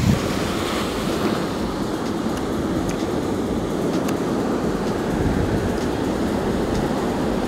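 Sea surf breaking on a sandy beach: a steady rushing wash of waves.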